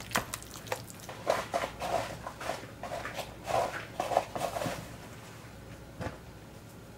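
A hand squishing and kneading moist cornbread dressing in a bowl: irregular wet squelching for about five seconds, then it stops. A single click follows near the end.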